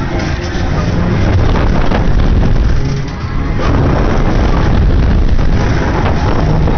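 Wind rushing over the microphone of a camera carried on a fast-spinning fairground ride: a loud, steady low rumble that eases for a moment about three seconds in.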